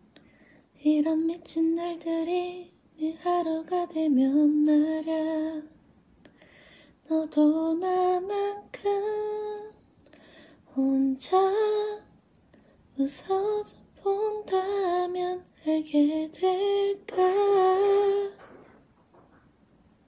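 A woman's voice singing unaccompanied in several short phrases, with held notes and pauses between them.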